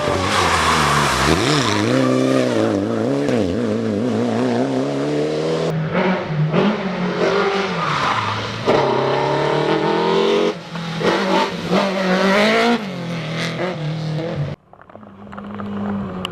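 Rally car engines at full throttle. The pitch repeatedly climbs and drops as the cars shift gears, across several clips cut together. Near the end the sound cuts off abruptly, and a quieter, steadier engine note follows.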